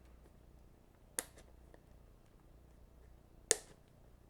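Two sharp clicks about two seconds apart as fingers pick at the plastic shrink-wrap on a box of trading cards, trying to get it open.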